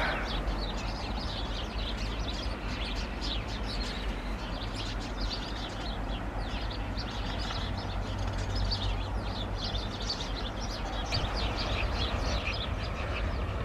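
Small birds chirping and twittering, many short quick calls one after another, over a steady low background rumble.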